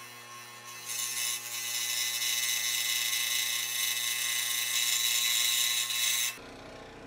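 Scroll saw running and cutting quarter-inch plywood, a steady machine sound that grows louder about a second in as the blade works through the wood. It cuts off suddenly about six seconds in.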